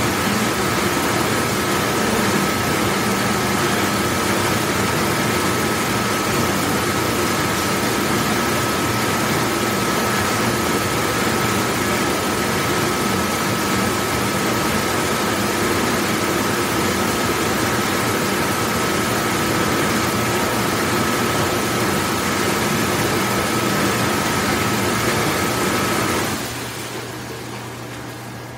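Large commercial dishwashing machine running, a steady loud wash noise with a faint high whine in it. Near the end the noise drops off sharply, leaving a quieter low hum.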